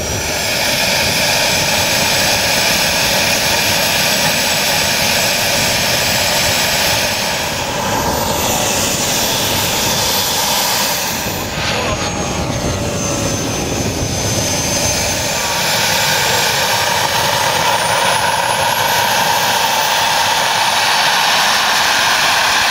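Model jet turbine engine of a large scale Heinkel He 162 Salamander running, a loud steady rushing hiss with a high whine that rises in pitch near the end.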